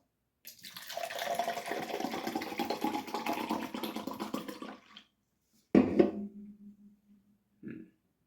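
Hard iced tea poured from a can into a cup, a steady splashing pour lasting about four seconds. About a second after it ends comes a sharp knock with a short ring as something is set down, and a small tap near the end.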